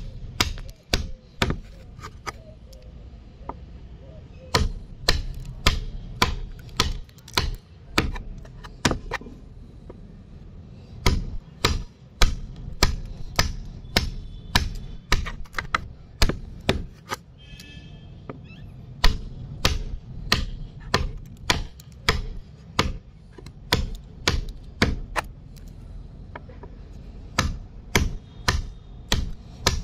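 Steel wood chisel being struck repeatedly, cutting into timber: sharp knocks about two a second in runs, with pauses of a second or two between them.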